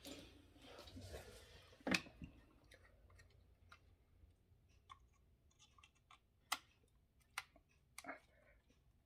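Faint scattered clicks and small scrapes of a screwdriver working a tight small screw out of a die-cast model car's display base, with a few sharper clicks among them.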